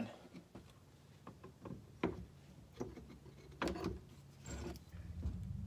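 Scattered light clicks and knocks of metal alternator parts, the housing, stator and rotor, being handled and fitted together during reassembly. A faint low hum comes in near the end.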